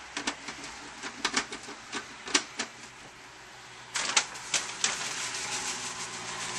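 Irregular sharp clicks and clatter from the plastic lid and trays of a round food dehydrator being lifted and set down, and from a paper bag of fresh hops being handled. There is a quicker run of clicks around four seconds in.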